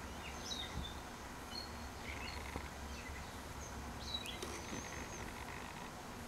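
Faint background noise: a steady low hum with scattered short, high chirps and a few light clicks.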